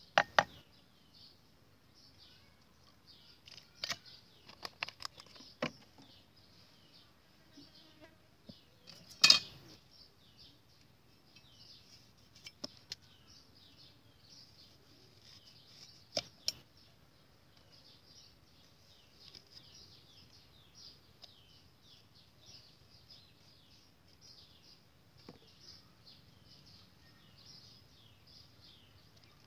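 Metal spoon striking and scraping against a clay mortar in a few sharp clinks, the loudest about nine seconds in, with smaller clusters around four to six, twelve and sixteen seconds. A steady high chirping runs underneath throughout.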